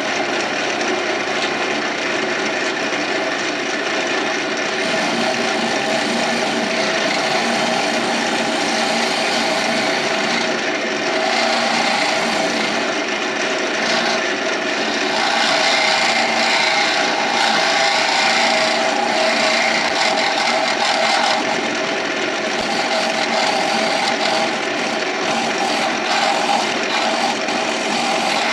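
Carbide hollowing tool cutting inside the walls of a spinning mulberry hollow-form vase on a wood lathe: a steady scraping rasp with the lathe running, swelling a little louder in the middle.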